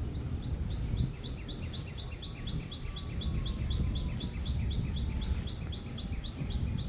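A songbird singing a long, even run of quick down-slurred notes, about four a second, over a steady low rumble.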